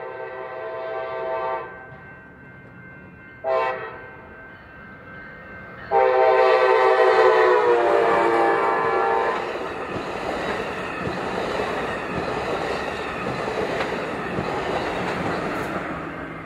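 Train horn sounding for a grade crossing: the end of a long blast, a short toot about three and a half seconds in, then a final long blast lasting about three seconds. The train then passes with a steady rumble and clatter of wheels on the rails.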